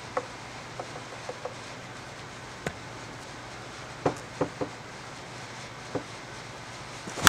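A few light knocks and taps as a softball is handled and set on a batting tee, over a low steady hum. At the very end, one sharp crack: a two-piece end-loaded composite softball bat (Suncoast Melee) hitting the ball off the tee.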